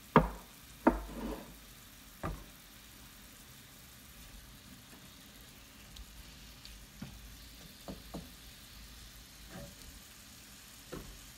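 Mushrooms and chopped tomatoes sizzling faintly in a frying pan, with three sharp knocks in the first couple of seconds, then lighter taps and scrapes of a wooden spatula stirring in the pan.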